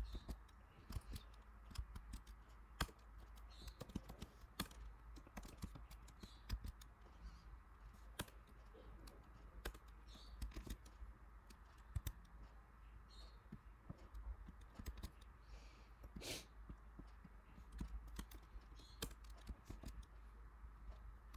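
Faint computer keyboard typing: irregular, scattered keystrokes with short pauses between them.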